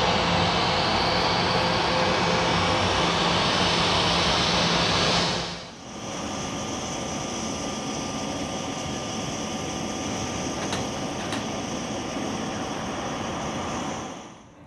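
Jet aircraft engines running steadily, loud for about five seconds. After a cut, a quieter steady hum with a high whine follows, then fades near the end.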